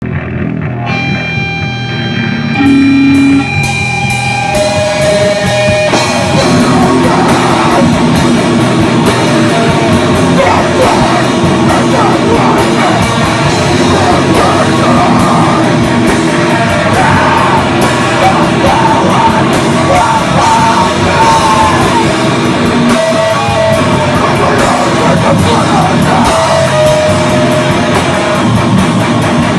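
Live rock band playing loud and distorted. Electric guitar holds single notes for the first few seconds, then the drums and full band come in about six seconds in, with a singer over the top.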